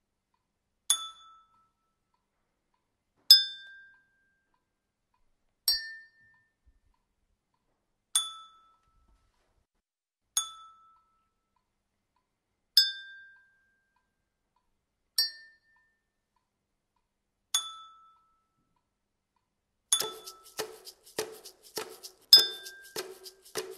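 Single bright clinks, each at a slightly different pitch and ringing briefly, spaced about two and a half seconds apart. Near the end they give way to a quick clatter of many clinks with a lower ring under them.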